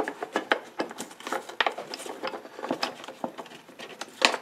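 Small objects clicking and clattering as someone rummages through workshop supplies: an irregular run of taps and knocks, the loudest near the end.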